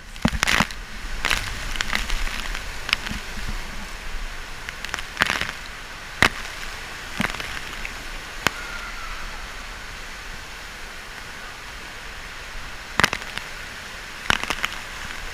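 Indoor water-park ambience: a steady rush of noise broken by scattered sharp clicks and knocks, most of them in the first few seconds and a couple of clusters near the end.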